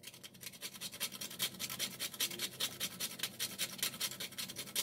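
A whole nutmeg rasped quickly back and forth on a small metal hand grater: a fast, even run of short scratchy scrapes as nutmeg is grated.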